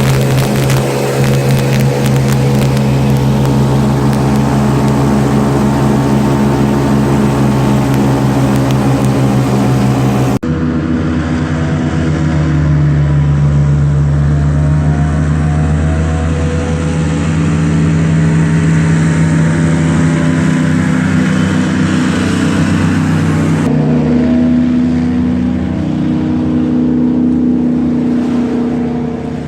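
Airboat engine and propeller running steadily at high power, a loud continuous drone with an even pitch. It changes abruptly about ten seconds in and again near the end as the footage cuts, and its pitch climbs a little after the first change.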